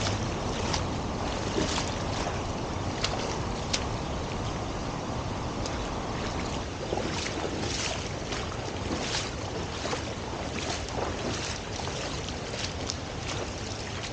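Steady rush of a waterfall's falling water, with irregular sharp splashes of a swimmer's strokes in the water close by.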